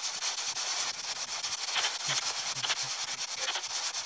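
Spirit box scanning through radio frequencies: a steady hiss of static chopped into rapid short pulses, with faint snatches of a low voice about two seconds in.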